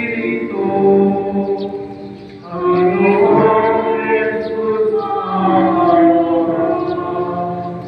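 Choir singing a hymn in long held notes, with a short break between phrases about two and a half seconds in.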